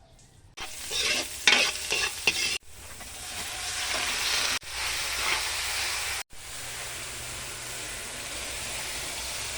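Food sizzling in a hot frying pan, with a utensil clattering and scraping against the pan while it is stirred for the first couple of seconds. The sizzle then runs steadily, breaking off and starting again abruptly a few times.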